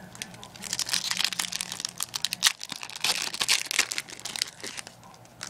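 Foil wrapper of a Pokémon trading card booster pack crinkling in rapid crackles as it is handled and torn open by hand, dying down near the end.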